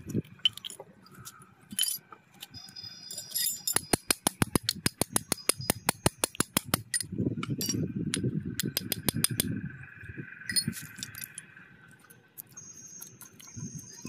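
Metal parts of a motorcycle disc brake caliper and its bracket clicking and rattling as they are handled: a rapid run of sharp clicks for about three seconds, then a stretch of low rubbing.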